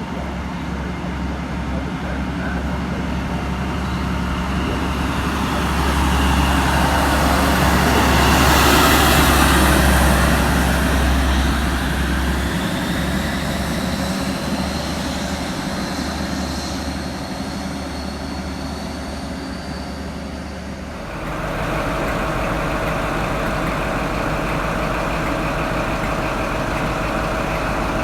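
British Rail Class 43 HST diesel power car pulling out and passing, its engine noise building to a peak about nine seconds in and then easing off, with a faint rising whine as it draws away. About 21 seconds in the sound changes abruptly to a steady engine drone.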